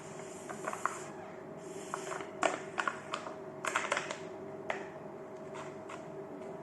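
Eating sounds: scattered crisp clicks and crackles in small clusters, the loudest around the middle, over a steady low hum.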